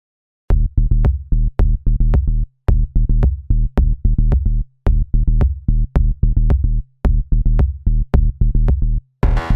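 Electronic background music with a heavy, deep drum-machine beat, starting about half a second in; a brighter layer comes in near the end.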